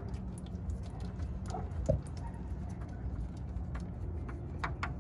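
Used engine oil dripping and trickling into a plastic drain pan from a spin-on oil filter being unscrewed by hand, with scattered light ticks and clicks and one knock about two seconds in, over a steady low background rumble.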